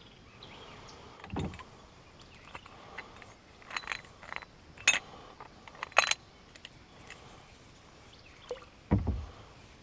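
Fishing tackle being handled in a kayak: scattered light clicks and rattles, with a dull knock about a second in and another near the end.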